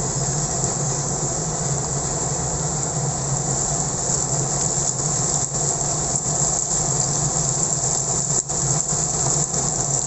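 Onions and blended dried-chilli paste sizzling in hot oil in a wok while being stirred with a spatula: a steady, loud sizzle, with a low hum underneath.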